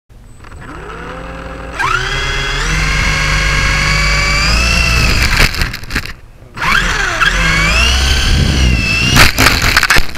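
RC helicopter's motor and rotors heard from onboard: a whine that spools up in rising pitch, then holds and wavers with the throttle. About halfway it falls away for a moment, spools up again with a wobbling pitch, and a few sharp knocks come near the end as it tumbles.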